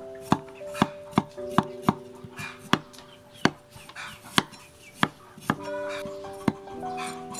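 Steel cleaver chopping fresh ginger root on a thick round wooden chopping board. About eleven sharp chops come at an uneven pace, one to two a second.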